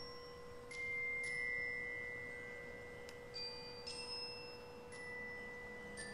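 Quiet background music of sparse, bell-like mallet-percussion notes, each struck sharply and left ringing, over one steady held tone.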